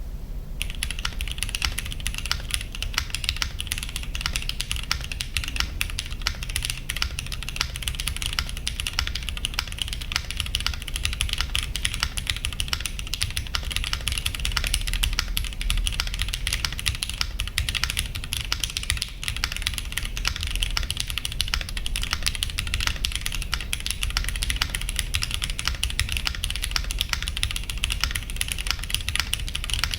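Monsgeek M1 mechanical keyboard with Cherry MX Hyperglide Black linear switches being typed on rapidly and continuously, the keystrokes thin and clacky.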